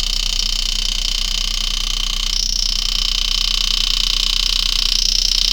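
A steady mechanical hum with several high whining tones, briefly changing about two and a half and five seconds in.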